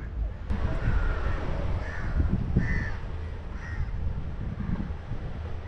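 Crows cawing, about five short calls spread over a few seconds, over a steady low rumble.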